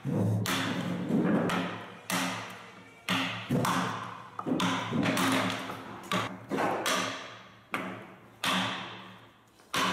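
Mallet driving a wood chisel into a large wooden windmill shaft: about fifteen sharp, irregularly spaced blows, one or two a second, each ringing out briefly as chips are chopped from the shaft.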